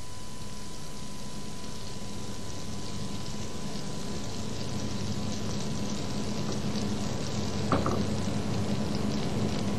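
Oil and butter heating in a frying pan, a faint sizzle and crackle that slowly grows louder as the butter melts, over a steady low hum. A brief tap about eight seconds in.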